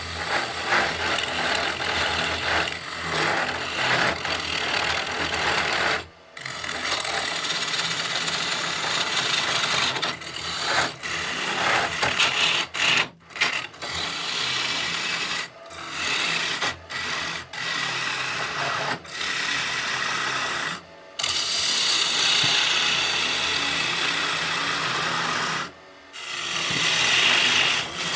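Bowl gouge cutting into a spinning locust mortar blank on a wood lathe, hollowing the inside: a steady scraping hiss of the cut, which stops briefly every few seconds as the tool comes off the wood between passes.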